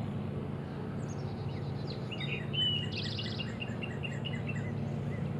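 Small birds chirping in a quick run of short high notes from about a second to four seconds in, over a steady low hum.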